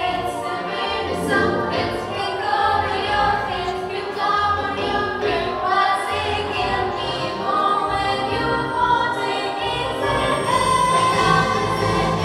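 Children's vocal ensemble of girls singing together into microphones over instrumental accompaniment.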